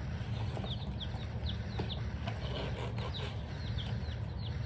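Baby chicks peeping inside their hatchery shipping box: many short, high peeps, each falling in pitch, overlapping in a constant chatter over a low steady hum.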